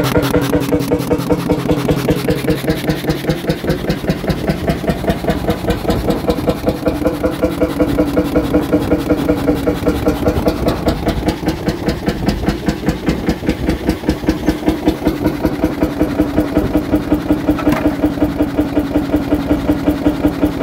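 Single-cylinder 40 hp hot bulb engine running at about its rated 325 rpm, firing in a steady even beat about five times a second, under load from a wooden plank pressed against its belt pulley as a brake. A brief sharper sound comes near the end.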